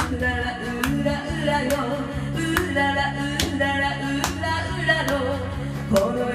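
Karaoke backing track playing upbeat band music with a steady beat, a sharp hit landing a little more than once a second.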